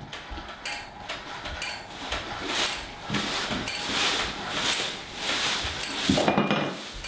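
Footsteps on a wooden floor, about one a second, wading through party litter, with crepe-paper streamers rustling. About six seconds in, scattered debris is kicked and scuffed with a louder jumble and a brief glassy ring.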